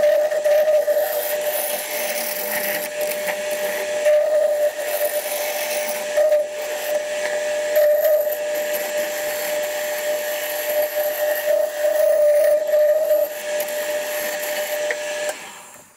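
A 1970s Coronet wood lathe spinning a rough ash log while a turning tool cuts it down to a cylinder. The tool scrapes and hisses as it peels off bark and shavings, swelling and easing as the cut goes on, over a steady whine. It all dies away near the end.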